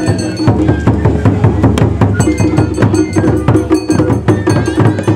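Japanese festival hayashi music played from a float: taiko drums beaten in a fast, steady rhythm with other struck percussion.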